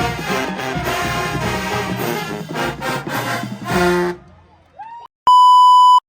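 Brass band music, trombones and trumpets, that breaks off about four seconds in; near the end comes a loud, steady electronic beep lasting under a second.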